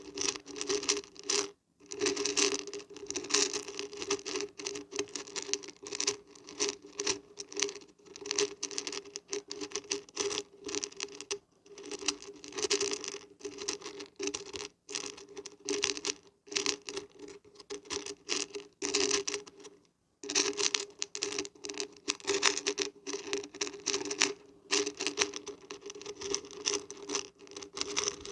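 Dried beans and barberries being shaken, a dense pattering rattle in quick bursts with a few short pauses.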